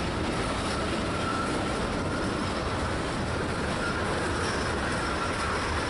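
Freight cars, tank cars and a covered hopper, rolling past with a steady rumble of steel wheels on rail, and a faint, thin, high wheel squeal running over it.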